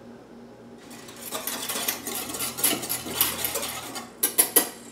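Metal spoon stirring a thin sauce in a small stainless steel bowl, scraping and clinking against the sides, followed near the end by a few sharp metal-on-metal taps.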